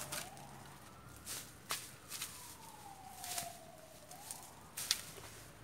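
Faint, distant siren wailing, its pitch slowly rising and falling over a couple of seconds, with a few sharp taps, the loudest about five seconds in.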